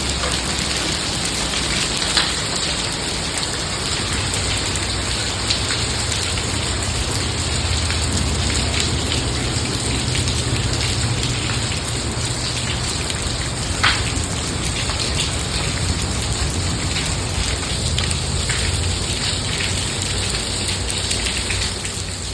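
Hailstorm: a steady hiss of falling hail and rain, with scattered sharp ticks of stones striking. The loudest tick comes about two-thirds of the way through.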